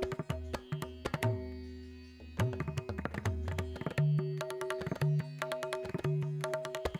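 Background music: tabla strokes in a rhythmic pattern over steady sustained drone tones.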